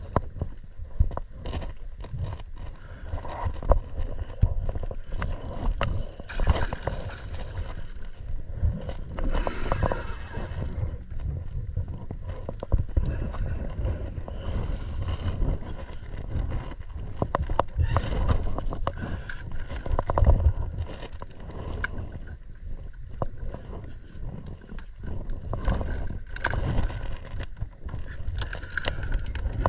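Water slapping and sloshing against a plastic fishing kayak's hull, with wind rumbling on the microphone and frequent clicks and knocks from the rod and spinning reel being worked while playing a hooked fish.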